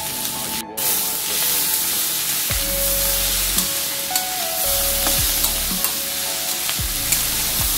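Shredded vegetables sizzling as they are stir-fried in a hot metal wok, with a metal spatula scraping and clicking against the pan.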